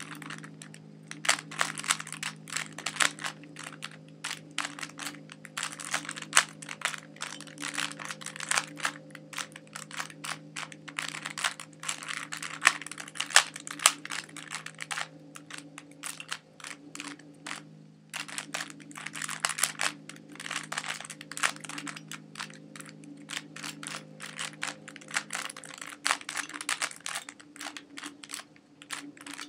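Plastic clicking and clacking of a standard 3x3 Rubik's Cube being turned rapidly during a solve, in quick flurries of turns broken by short pauses.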